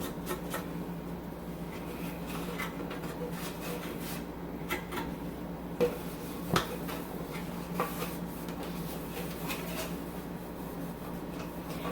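Light rubbing and scattered clicks and knocks of refrigerator shelves and parts being wiped clean with a rag, the sharpest knocks a little past the middle, over a steady low hum.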